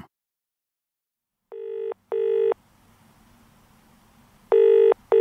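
Telephone ringing in the British double-ring pattern: two short rings, a pause of about two seconds, then two more rings. The first pair starts quietly and grows louder, and a faint low hum lies underneath.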